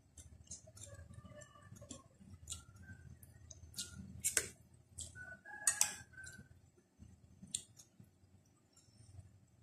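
Spoon clicking and scraping against a plate of pork larb during eating, in scattered sharp taps, the loudest about four and a half and six seconds in.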